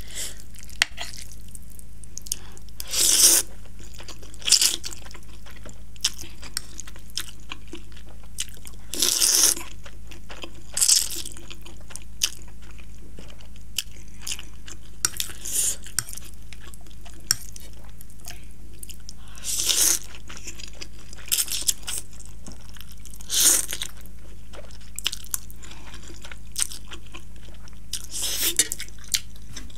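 A person eating instant noodles close to the microphone: chewing and mouth sounds, with a short loud slurp every few seconds, about eight in all, over a steady low hum.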